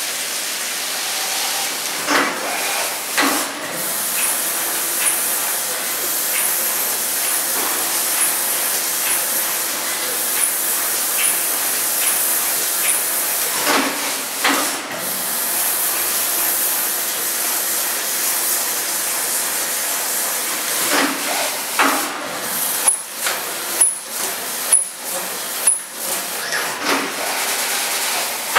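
Brother TC-S2DN-O CNC machining centre cutting aluminium under flood coolant, chamfering and then tapping threads: a steady hiss of coolant spray, broken by sharp clicks and knocks that come in a quick run, about one a second, near the end during the tapping.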